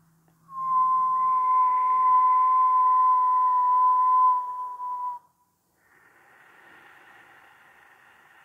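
A person whistling one long, steady note with breath noise behind it, held for about four and a half seconds, dipping slightly in pitch at the end before cutting off.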